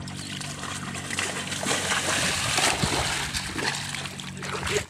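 Water splashing and sloshing as people run and wade through a flooded rice paddy. It builds in the middle and eases off near the end.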